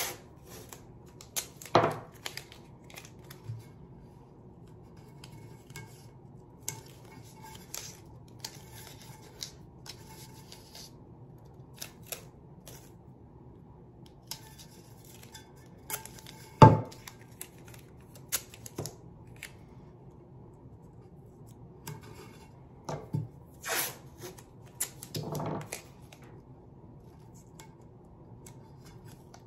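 Blue painter's tape being peeled, torn and pressed onto a stainless steel tumbler: scattered crackles and rustles of the tape, with one sharp knock a little past halfway.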